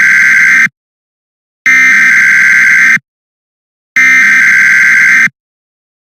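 Emergency Alert System SAME header tones: loud electronic data bursts, each about a second and a half long, repeated three times with about a second of silence between them, with a short burst starting near the end.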